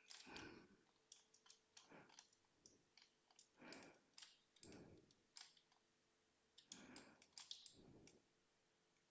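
Near silence with faint, scattered clicks of a computer mouse, some in quick runs like a scroll wheel turning, and a few soft rustles in between.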